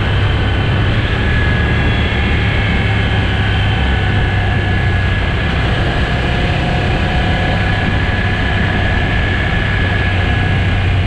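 Motorcycle engine running steadily at a constant cruising speed, with a low drone and a dense wash of road and wind noise.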